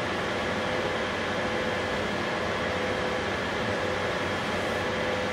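Steady mechanical hum and hiss of a fan or air-handling kind, with a faint constant tone, unchanging throughout.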